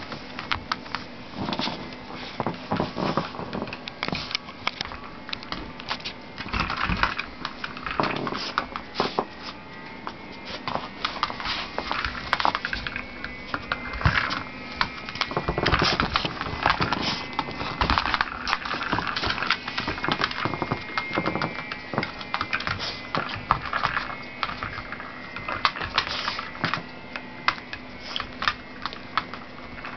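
A Miniature Pinscher's claws clicking and scratching on wooden floorboards as it noses and pushes a rubber Twist 'n Treat treat-dispensing toy, which knocks and scrapes on the floor. The clicks and knocks come rapidly and irregularly throughout, with a few louder bursts.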